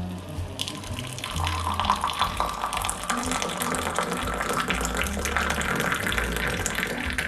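Water poured in a thin stream from a kettle into a glass mug onto coffee, splashing steadily. The pitch of the pour rises as the mug fills.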